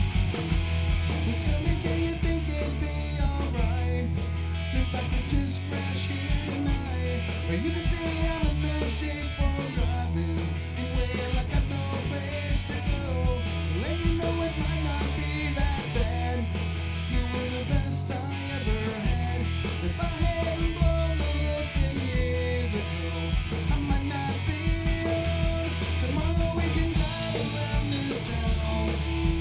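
Live rock band playing an instrumental passage: electric guitars over bass and a drum kit with cymbals.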